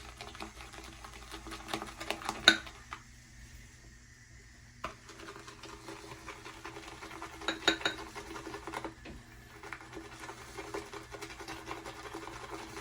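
Synthetic shaving brush swirling shaving soap into lather in a shaving bowl: a soft, steady swishing with sharp clicks of the brush against the bowl, twice, and a quieter spell about three seconds in.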